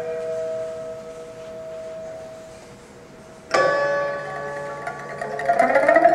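A quartet of pipas (Chinese lutes) playing: a plucked chord rings and fades, a second strong chord is struck about three and a half seconds in, and a rapid tremolo of plucked notes swells near the end.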